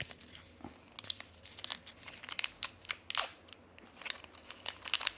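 Fidget's packaging being opened by hand: irregular crinkling and tearing with scattered sharp clicks and snips.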